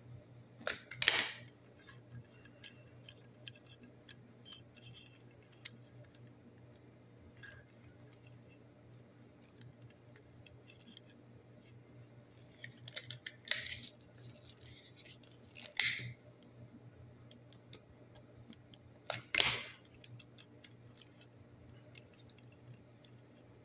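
Hands handling ceiling fan light-kit wires and plastic connectors: small clicks and rustles, with four louder short scraping snaps, about a second in, twice near the middle and once more past three-quarters, over a low steady hum.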